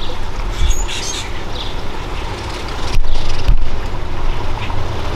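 Wind buffeting the microphone: a loud, uneven low rumble that swells and dips, with a sudden break about three seconds in.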